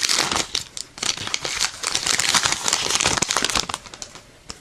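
Foil booster-pack wrapper crinkling and tearing as it is handled and torn open, in dense, irregular crackles that thin out to a few faint clicks near the end.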